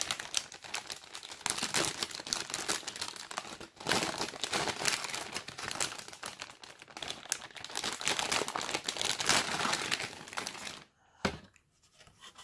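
Anti-static bag crinkling continuously as a motherboard is unwrapped from it by hand. The crinkling stops about a second before the end, followed by one short click.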